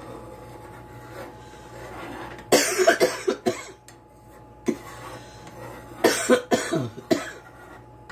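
A woman coughing in two short fits of several coughs each, the first about two and a half seconds in and the second about six seconds in.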